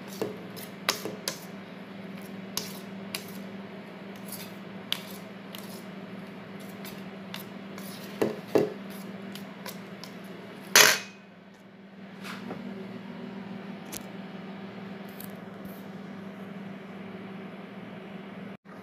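Wire whisk beating cake batter in a mixing bowl, with irregular clinks and taps as the whisk strikes the bowl's side, and one louder knock about eleven seconds in.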